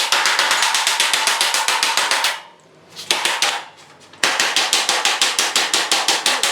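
Power impact tool hammering in rapid, even bursts, about eleven blows a second: a run of a couple of seconds, a brief burst, then another long run. It is backing out fasteners while a garage door is taken apart.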